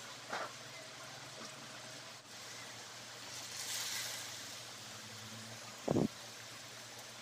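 Pork ribs, and garlic slices before them, frying in bubbling oil in an aluminium pot: a steady sizzle that swells louder and higher about four seconds in. Two short thumps stand out, a small one near the start and a louder one about six seconds in.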